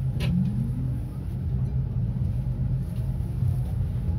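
Tram heard from inside the car while running: a steady low rumble, a sharp click about a quarter of a second in, then a thin motor whine rising in pitch over the next couple of seconds as the tram gathers speed.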